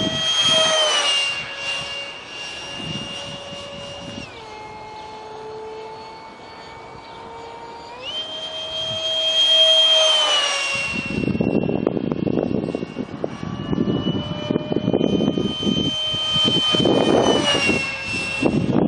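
70 mm electric ducted fan of a foam RC jet whining in flight. Its pitch steps down and back up as the throttle is changed, and a rough rushing noise joins it from about halfway.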